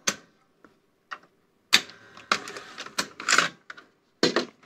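A string of irregular sharp mechanical clicks and clunks from a top-loading VHS VCR's tape mechanism and cassette basket as it is worked by hand and the tape comes out; the loudest clunk comes a little under two seconds in.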